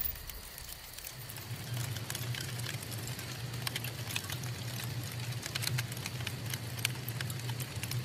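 Campfire crackling, with many irregular sharp snaps and a steady low rumble beneath that sets in about a second in.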